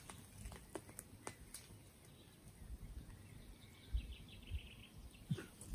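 Quiet woodland: faint scattered crackles and rustles of twigs and leaf litter being handled, with a few soft thumps. A bird chirps faintly about halfway through.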